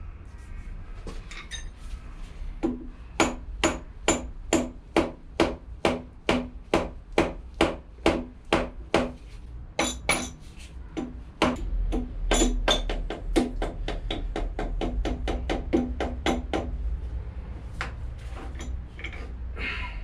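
Steel bar knocking against the threaded spindle collar inside the Archdale vertical mill's cast-iron headstock, working the collar loose to unthread it. The metal-on-metal strikes ring and come about two or three a second, then turn quicker and lighter, about four a second, before stopping.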